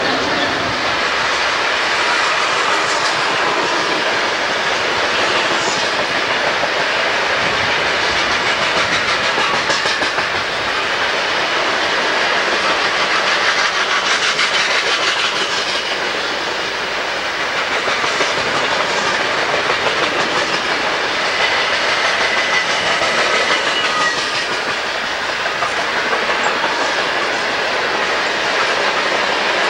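Tank cars of a molten sulphur unit train rolling past close by, their wheels clacking rhythmically over the rails in a steady, continuous run. A faint high squeal is heard about two-thirds of the way through.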